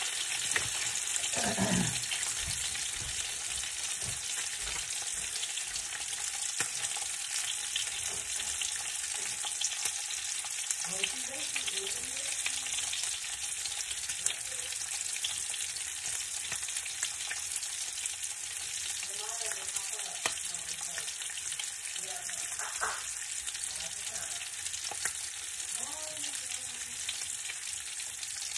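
Food frying in a pan: a steady sizzle with fine crackles and pops throughout. Faint, distant voices come in now and then.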